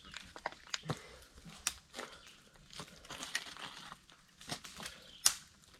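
Dry, brittle branches and twigs cracking and crunching in irregular snaps, the sharpest one about five seconds in.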